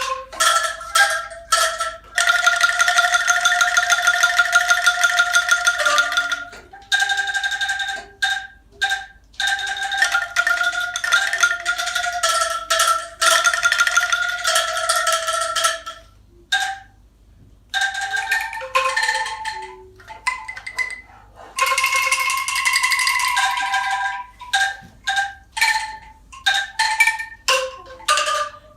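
A tuned mallet percussion instrument being played. Stretches of fast repeated strikes on held notes, near the start and again past the middle, alternate with single struck notes and short pauses.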